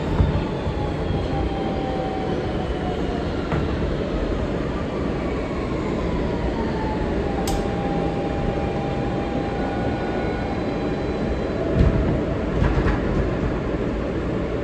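Interior of an R160B subway car with Siemens propulsion, running over the rails with a steady rumble. The motor whine glides downward in pitch twice, then holds a steady tone, as the train slows. A few knocks come near the end.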